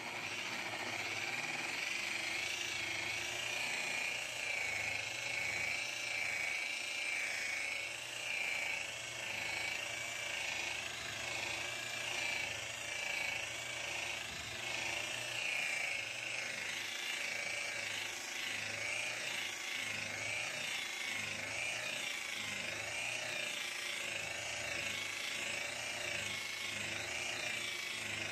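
Cordless rotary polisher with a wool buffing pad running against a fiberglass hull, buffing out oxidized gelcoat: a steady high whine that wavers slightly in pitch as the pad is pressed and moved.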